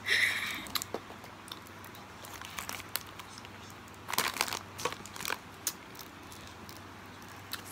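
Plastic ice cream bar wrapper crinkling as it is handled and peeled, in several short rustling bursts, the loudest right at the start and more around four to five seconds in.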